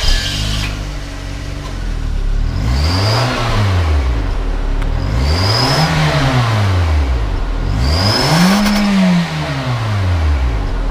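1999 Toyota Corolla's four-cylinder engine idling, then revved three times, heard at the tailpipe. At the top of each rev a tailpipe turbo whistle gives a short high whistle.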